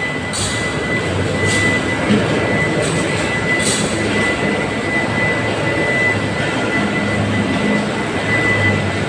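Steady machinery roar in a block-ice plant with a thin high whine running through it, a low hum that comes and goes in stretches, and a few brief hissing splashes in the first few seconds as ice cans are refilled with water and carried on electric chain hoists.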